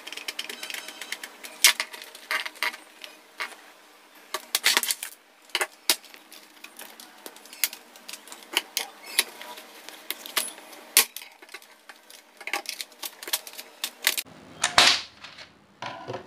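Irregular plastic clicks and snaps from a Lenovo keyboard being taken apart: a screwdriver at a screw on its back, then the case pressed and worked loose by hand, with a louder crackle near the end as the top case gives.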